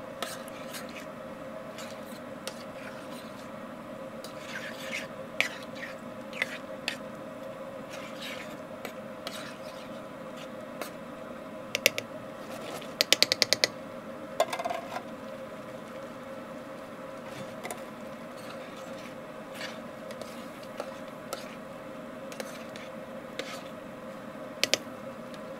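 A spoon stirring and scraping in a metal frying pan of simmering meat and chopped tomatoes, with scattered clicks and a quick run of sharp taps about halfway through, over a steady hum.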